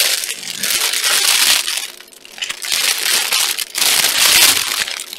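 Packaging crinkling and rustling in several loud bursts as a shirt is unwrapped and handled.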